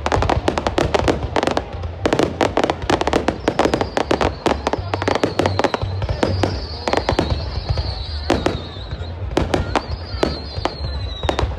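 Fireworks going off in a rapid, continuous barrage of bangs and crackles, with a high wavering whistle-like tone sliding slowly downward about midway and again near the end.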